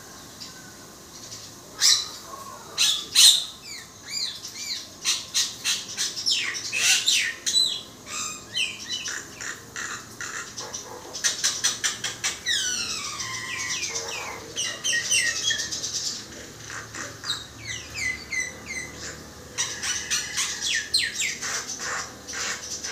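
Common myna singing a long, varied run of sliding whistles, chirps and sharp clicks, starting about two seconds in.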